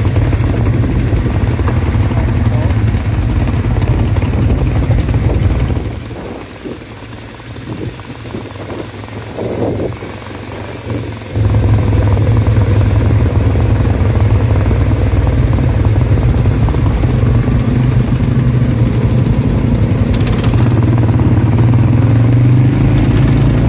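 ATV engine running steadily, dropping to a much quieter, lower running for several seconds about a quarter of the way in, then picking back up. Two brief hisses come near the end.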